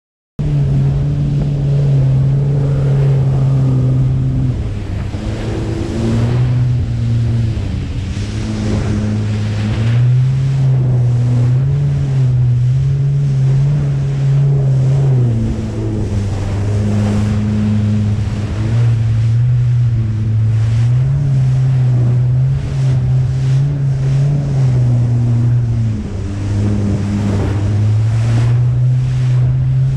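Jet ski engine running at speed, its note stepping up and down several times as the throttle changes, over rushing water spray and wind on the microphone. It starts suddenly about half a second in.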